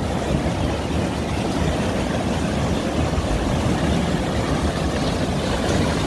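Fast stream water rushing and churning over rocks through a gap in the river ice, a steady, even rushing noise.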